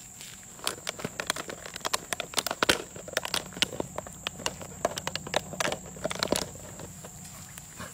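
Two Cane Corso puppies wrestling in the grass: a quick, irregular run of scuffling clicks and crackles, busiest in the middle and dying away near the end.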